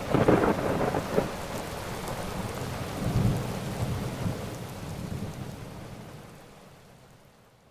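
Thunderstorm with steady rain: a thunderclap right at the start with a sharp crack about a second in, and a second roll of thunder about three seconds in. The whole storm fades out gradually toward the end.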